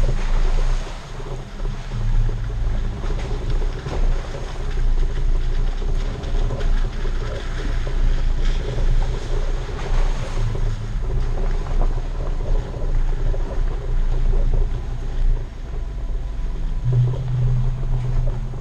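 Off-road vehicle on mud-terrain tyres driving over a dirt trail: a steady low drone of engine and tyres, with wind buffeting the microphone.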